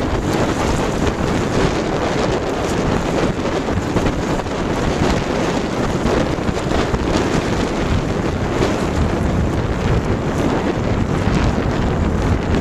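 Strong wind buffeting a smartphone microphone mounted on a sailing boat's gunwale, a loud steady rush, with water rushing past the hull underneath.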